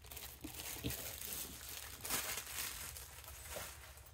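Packaging crinkling and rustling on and off as items are handled and moved aside, with a few light ticks.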